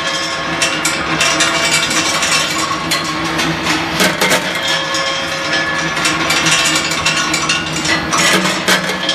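Hot steel balls clanking irregularly against steel as they roll along the chute and through the rotating quenching drum, over the steady hum of the drum's geared electric drive.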